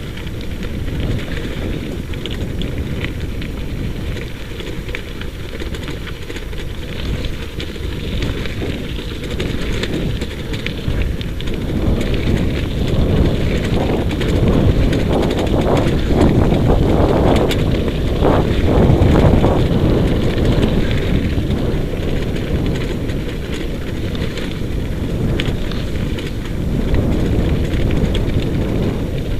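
Wheels of a dryland dog-racing rig rolling fast over a dirt and gravel track, with wind rushing over the microphone, as a husky team pulls it along. The rumble grows louder for a few seconds in the middle.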